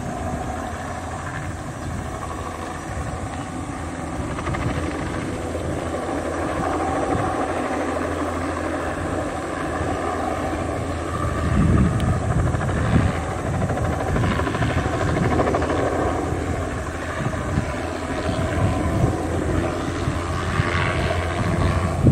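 Bell 206B-3 JetRanger III helicopter hovering low and setting down on its skids, its turbine engine and two-blade main rotor running steadily. The rotor's low beat grows louder about halfway through as it comes in close.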